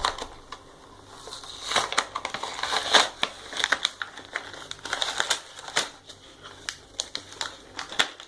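A fingerboard's cardboard toy box and its packaging being pulled open and handled by hand, with irregular crinkling, crackling and sharp clicks.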